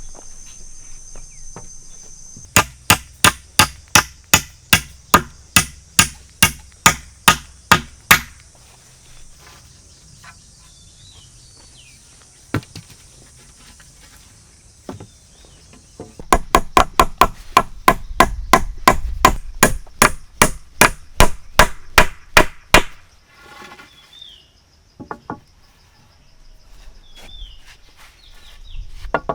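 Wood being chopped with a hand tool in two runs of quick, regular blows, about three a second. A steady insect buzz and a few bird chirps sound between the runs.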